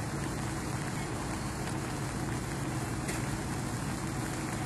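Steady rushing background noise with a low steady hum underneath, unbroken throughout.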